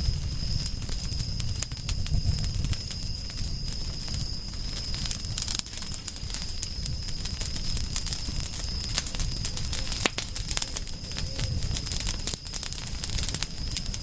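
Campfire burning and crackling, with frequent irregular sharp pops and snaps over a steady low rumble, and a thin steady high-pitched tone running underneath.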